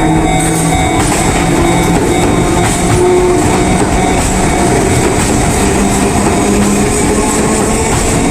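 Enoden (Enoshima Electric Railway) train running past close by at a level crossing: loud wheel-on-rail noise with the drone of its motors, whose pitch shifts up and down.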